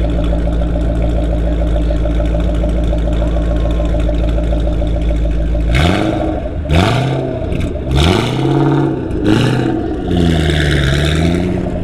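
Shelby Mustang V8 idling with a steady deep drone through its dual exhausts, then revved in about five quick throttle blips, each rising and falling in pitch, as the car pulls away.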